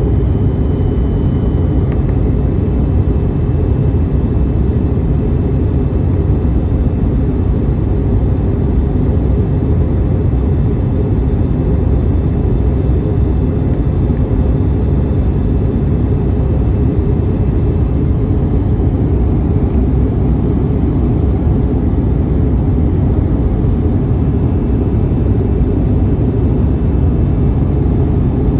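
Steady cabin noise inside an Airbus A321neo on descent: an even low rumble of airflow and engine, with faint steady high whine tones, one of which drops out about two seconds in.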